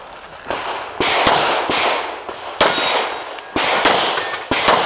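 Glock pistol firing a string of about eight shots at uneven spacing, each a sharp crack with an echo trailing off behind it.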